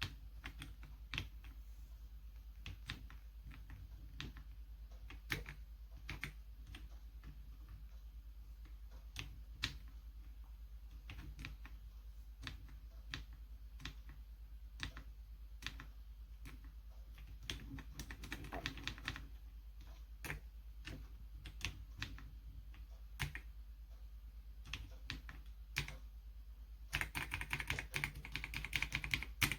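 Keys being pressed on a magnetic-switch 60% mechanical gaming keyboard: scattered single keystrokes, then a fast burst of typing near the end. A steady low hum runs underneath.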